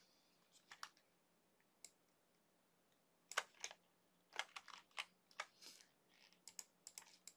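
Faint, scattered clicks of a computer mouse and keyboard: a couple at the start, then a denser run of clicks through the second half, over a faint steady low hum.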